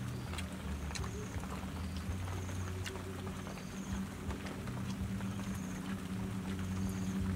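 Outdoor background sound: a steady low hum, with a short high trill repeating about once a second and a few faint clicks.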